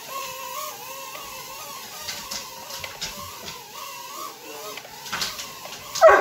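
Small toy quadcopter drone's propellers whining, the pitch wavering up and down as it flies and is grabbed at by a dog, with scattered light clicks and one loud, sharp burst near the end.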